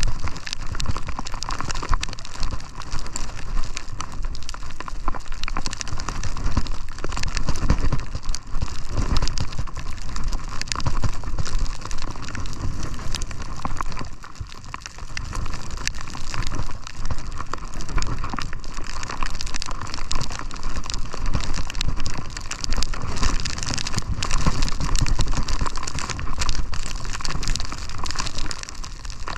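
Skis sliding and scraping over snow on a downhill run, with wind rushing over the camera's microphone. It is a steady, rough hiss that eases briefly about halfway through.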